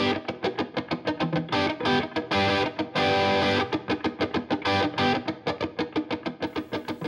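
Intro music: a guitar playing quick picked notes, with a couple of briefly held chords.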